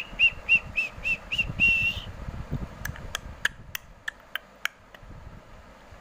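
Seven short, high whistled notes in quick succession, the last one held a little longer, followed by about seven sharp clicks spaced evenly about a third of a second apart.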